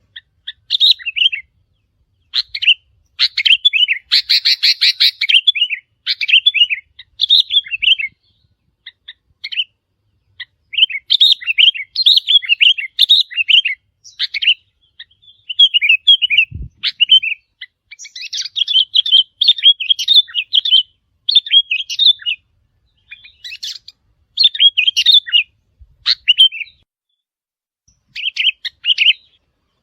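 Sooty-headed bulbul song: bursts of quick, bubbly chirping phrases repeated every second or two with short pauses between them, with one brief low thump about halfway through.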